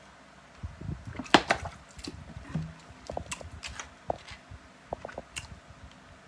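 Someone drinking from a plastic water bottle: scattered sharp crackles and clicks of the bottle being handled, the loudest about a second and a half in.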